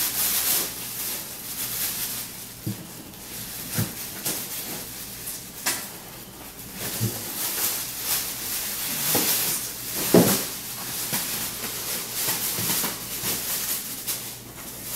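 Cardboard shipping box being worked open by hand: scraping, tearing and rustling of cardboard, with a few scattered knocks.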